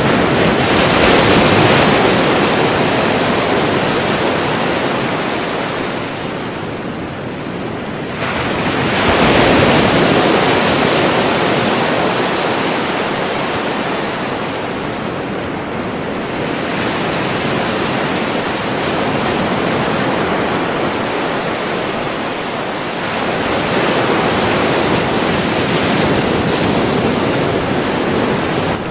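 Ocean surf: waves breaking and washing in a continuous rush that swells and ebbs, with big breakers surging near the start, about nine seconds in, and again past twenty seconds.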